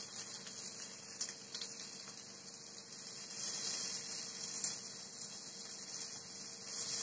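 Paneer tikka skewers sizzling faintly on an oiled iron tawa, a steady soft hiss of cooking, with a few light ticks as the skewers are turned.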